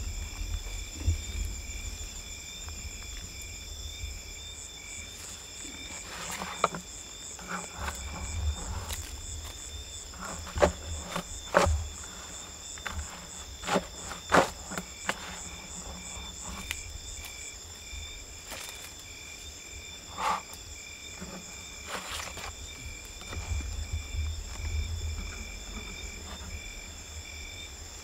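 Insect chorus chirring steadily in several high pitches, with a few sharp knocks or clicks scattered through, the loudest around the middle.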